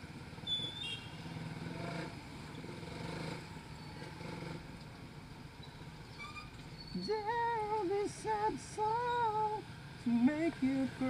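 Suzuki Raider 150 Fi's single-cylinder engine running at low speed in slow traffic. From about seven seconds in a high-pitched voice is heard, the loudest sound here, in long held tones that rise and fall, and again near the end.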